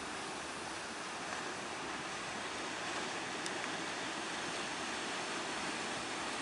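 Steady rushing noise of surf and choppy sea water, without a clear engine note.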